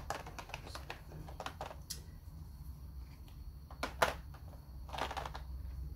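Small clear plastic drill containers clicking and tapping against each other and the plastic storage case as they are pressed into place by hand: irregular light clicks, the sharpest about four seconds in, over a low steady hum.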